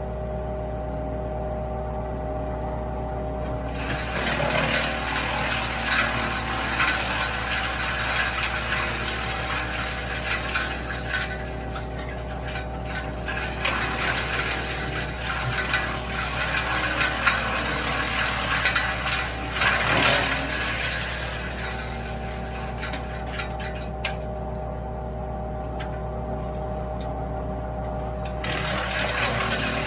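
A WoodMaxx MX-8800 PTO wood chipper running steadily off a Kubota L3901 tractor, with long stretches of loud crunching and rattling as apple branches are fed in and chipped. The chipping runs from about four seconds in to about twenty-two seconds, and starts again near the end.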